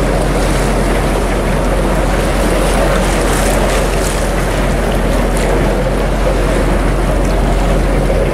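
A boat's engine running with a steady low drone, under a loud rush of wind and water on the microphone.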